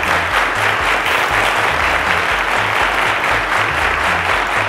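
Studio audience applauding steadily, with the low bass of a background music bed pulsing underneath.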